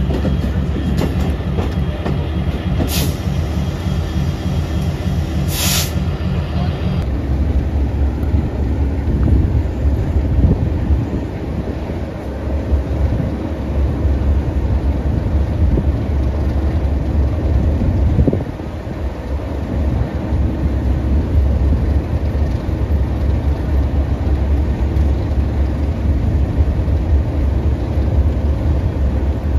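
A Class 66 diesel locomotive's EMD two-stroke V12 idling steadily, with two short hisses of air about 3 and 6 seconds in. Then a Class 37 diesel locomotive's English Electric V12 idles with a deep, steady rumble.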